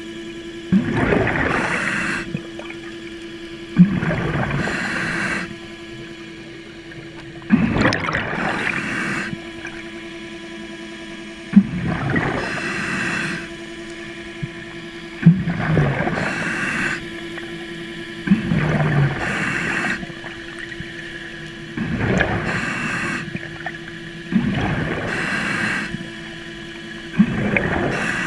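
Scuba diver breathing through a regulator underwater, about one breath every three to four seconds: each begins sharply, then about a second and a half of bubbling rush. A steady hum runs underneath.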